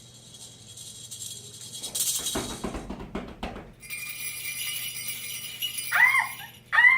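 Jingling, bell-like shimmer with a rattle in it, rising in level over the first couple of seconds. Near the end come short high calls that rise and fall, about a second apart.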